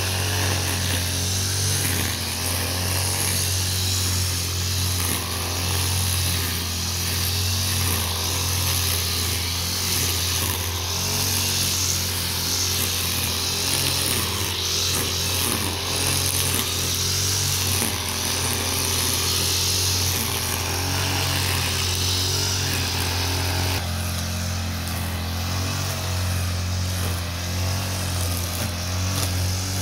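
Petrol string trimmer (brush cutter) engine running steadily at high speed as its line cuts grass, with a slight shift in tone about three-quarters of the way through.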